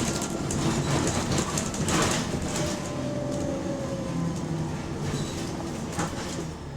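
Bus under way, heard from on board: the engine runs with a steady low drone, the cabin rattling, with a few sharp knocks about two and six seconds in. The bus has an exhaust leak.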